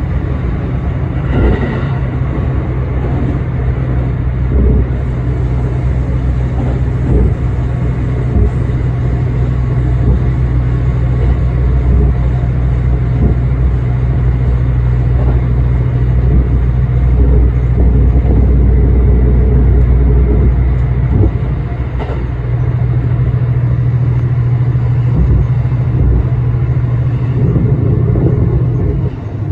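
ET122 diesel railcar running along the line, heard from inside the driver's cab: a steady low engine drone mixed with wheel-on-rail rumble. The engine note eases off about halfway through, then comes back stronger, with a few short knocks from the running gear.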